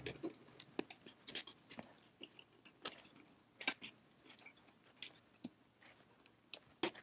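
Faint, irregular clicks and light scrapes of a small screwdriver turning tiny screws out of a radar detector's circuit board, with the loose screws picked off by hand.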